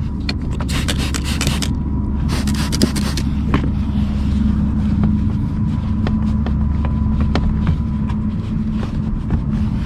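Two short hisses of about a second each from an aerosol spray can being sprayed onto the door hinges, over a steady low rumble, with scattered small clicks.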